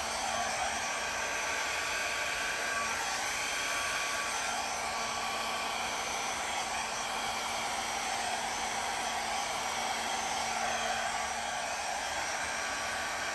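Handheld hair dryer running steadily, blowing wet acrylic paint across a canvas in a Dutch pour: a constant rush of air with a low motor hum.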